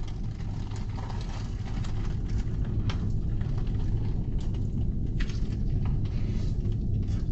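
Steady low rumble of a car heard from inside the cabin, with a few faint clicks and taps.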